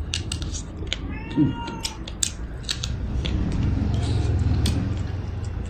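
A domestic cat meows once, a single drawn-out call about a second in, over scattered clicks of chopsticks against a porcelain rice bowl. A low rumble swells in the middle.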